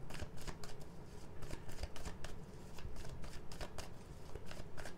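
A deck of tarot cards being shuffled by hand, a steady irregular run of quick card-edge clicks and riffles.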